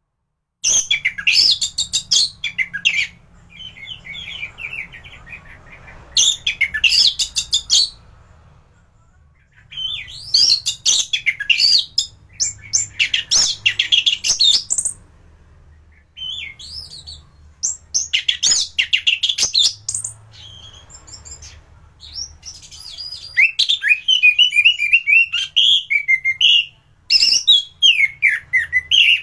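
Orange-headed thrush (anis merah) singing: loud bouts of rapid, varied warbled phrases, broken by short pauses and quieter song.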